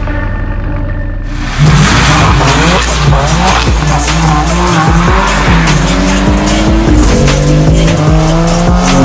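A BMW M4's twin-turbo straight-six comes in suddenly about a second and a half in and revs hard, its pitch climbing and dropping again and again, with tyres squealing and skidding over it. A music track plays underneath.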